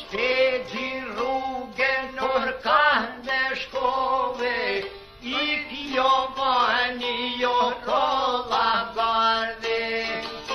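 Albanian folk song on the soundtrack: a male voice singing long, ornamented, wavering phrases over a steady drone and plucked-string accompaniment.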